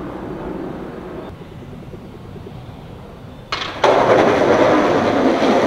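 Skateboard wheels rolling loudly over rough street asphalt, setting in suddenly about three and a half seconds in after a quieter, steady rumble.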